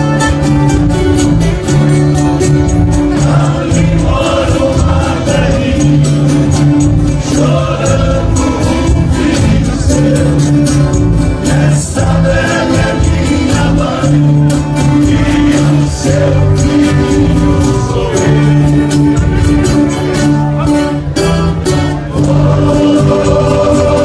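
Brazilian caipira country music played by an ensemble of violas caipira and acoustic guitars, with a group of men's voices singing together.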